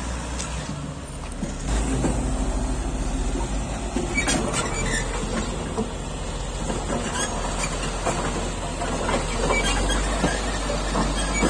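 Caterpillar 120K motor grader's diesel engine running steadily under load as its blade scrapes and pushes soil and gravel, with scattered clicks and crunches of stones from about four seconds in.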